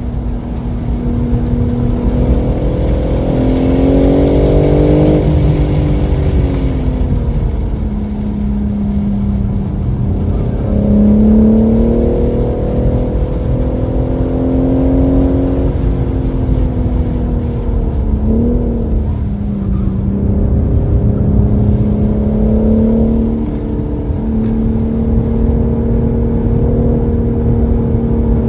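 A 2023 BMW M3 Competition's twin-turbo inline-six at speed on a race track. Its pitch climbs and drops several times as the car accelerates and lifts, with a sharp dip and quick climb near two-thirds through. A steady low rumble runs underneath.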